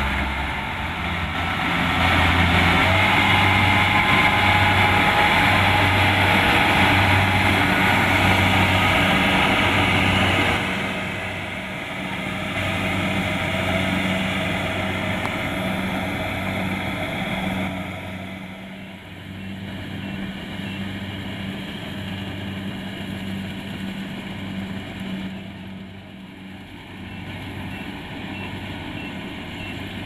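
Kubota DC-70 Plus rice combine harvester's diesel engine running steadily. It is loud at first, then fades in two steps, after about ten seconds and again near the middle, as the machine moves away.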